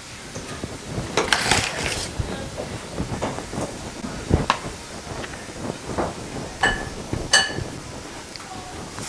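Hands spreading and rubbing flour over a wooden tabletop: scattered pats, knocks and brushing, with two short ringing clinks near the end.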